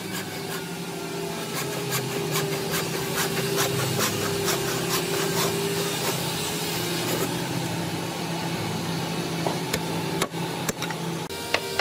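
A steady machine hum under repeated scraping and rubbing of a tool on wood, with a sharp click about ten seconds in.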